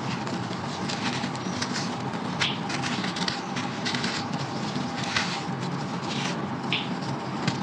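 Crunchy brown sand chunks being crumbled by hand in a clay pot: gritty crunching and crackling in irregular bursts, with a steady low hum underneath.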